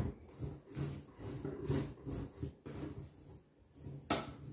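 Semi-wholemeal bread dough being kneaded by hand on a wooden worktop: soft, regular thuds and squishes, about two a second, with one sharp knock near the end.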